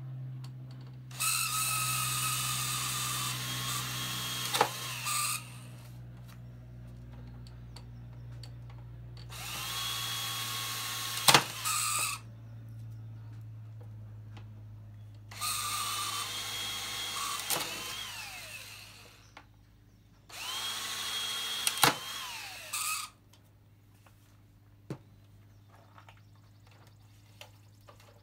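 Electric drill run in four bursts of a few seconds each, a steady whine that winds down after each release, with a sharp click near the end of each burst.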